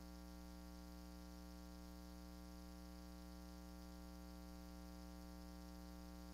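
Near silence: only a faint, steady hum with no change.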